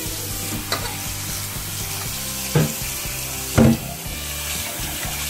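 Kitchen tap running into a stainless steel bowl of sliced chicken breast in a sink, a hand stirring the meat in the water. A few short knocks come through the hiss, the loudest about three and a half seconds in.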